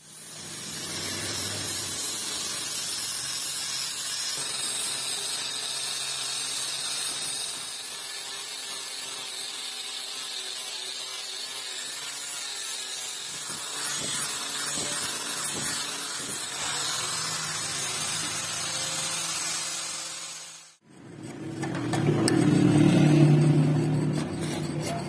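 Handheld angle grinder with a sanding disc running against a wooden shovel handle: a steady whine under the hiss of sanding. It cuts off suddenly about 21 seconds in, and a louder, deeper sound follows.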